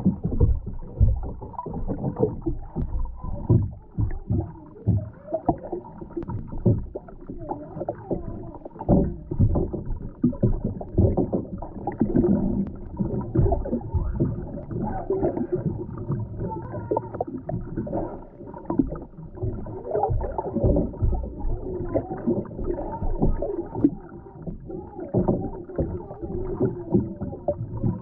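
Muffled underwater sound picked up by a camera submerged in shallow lake water: irregular low knocks and water sloshing, with a faint wavering tone now and then.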